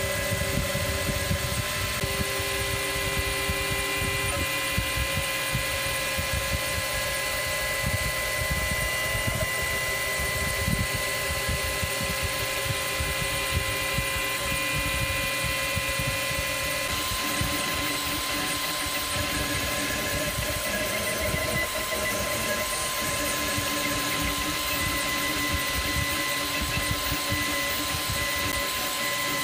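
Cetus3D 3D printer printing the first layers of a part: its stepper motors whine steadily, and their pitch shifts every few seconds as the extruder head changes moves. A steady fan hiss runs underneath.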